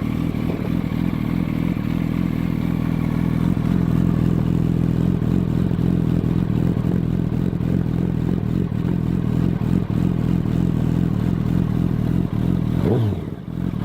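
2007 Yamaha YZF-R1's inline-four engine idling steadily at a constant pitch, running on freshly changed oil to circulate it after the oil change.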